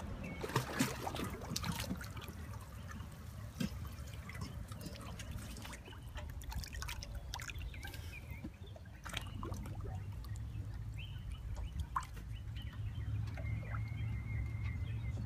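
Water sloshing, trickling and dripping in small irregular splashes, stirred up by a golden retriever moving about in the water under a wooden pier.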